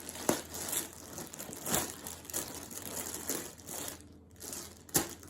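Parcel packaging being handled and opened by hand: irregular crinkling and rustling, with a few sharp cracks, about three.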